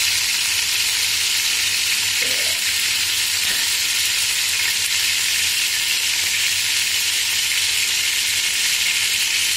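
Pork pieces sizzling steadily as they sauté in olive oil in a stainless steel pot.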